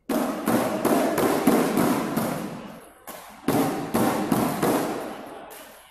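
A crowd cheering and clapping in two loud bursts. The first starts suddenly and fades over about three seconds; the second surges about three and a half seconds in and fades again.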